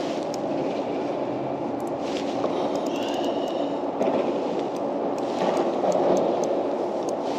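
Spinning reel being wound steadily, a continuous whirr of its gears, as line is retrieved on a hooked fish, with a few faint ticks.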